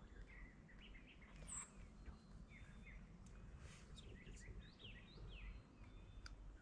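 Faint songbirds chirping, with many short quick whistled notes and one brief high note about a second and a half in, over a low steady rumble.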